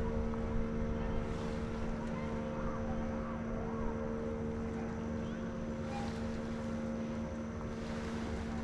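Small boat motor running at a steady speed, a constant even hum over a low rumble, starting abruptly at the beginning.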